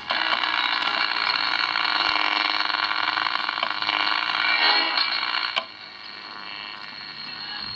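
Home-built Philips EE2003 three-transistor AM radio playing through its small speaker as the tuning dial is turned: a station's broadcast mixed with noise, with the sound cut off above the treble as AM reception is. About five and a half seconds in there is a click and the sound drops to a fainter hiss.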